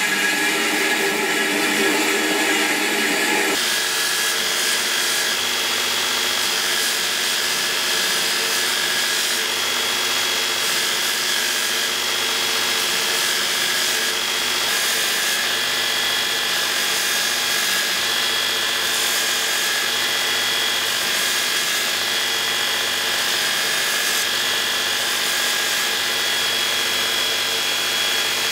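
Belt grinder running with a steady whine. For the first few seconds a wooden handle block is pressed against the abrasive belt, adding a rough sanding noise that drops away about three and a half seconds in.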